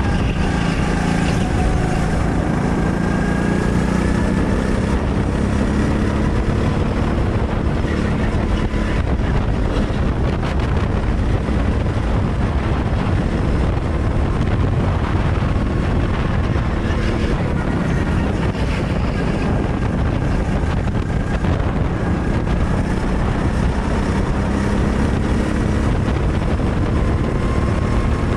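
Go-kart engine running hard, heard onboard, its pitch rising and falling as the kart accelerates down the straights and slows for the corners, under a steady rush of noise.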